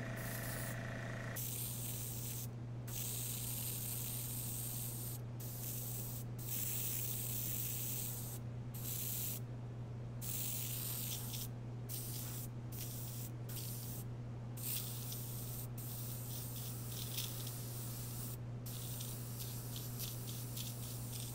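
Airbrush spraying water-thinned Black 3.0 acrylic paint: a steady hiss of air that stops and starts a dozen or so times as the trigger is released and pressed again, over a steady low hum. The thinned paint foams and sprays poorly.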